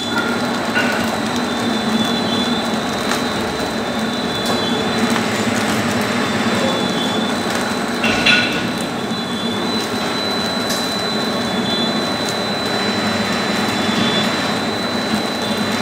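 Horizontal flow-wrap packing machine running steadily, a continuous mechanical hum with a high steady whine and a faint sound that repeats every second or two. About eight seconds in there is one louder clack.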